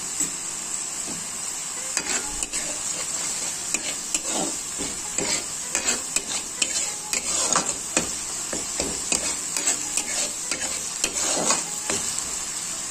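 Masala frying in oil with a steady sizzle while it is stirred, the spoon scraping and knocking against the pan at an irregular pace from about two seconds in. The masala is still in its frying stage and not yet done.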